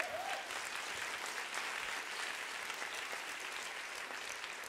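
Audience applauding, a dense, steady clapping that eases off near the end.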